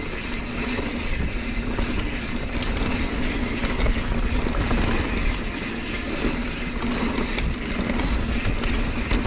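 Mountain bike descending a dirt trail at speed: wind rushing over the camera microphone, knobby tyres rolling over dirt and the bike rattling, with a steady hum underneath.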